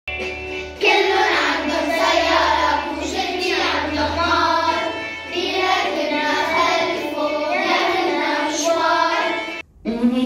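A group of children singing a song together. The singing breaks off briefly near the end and then starts again.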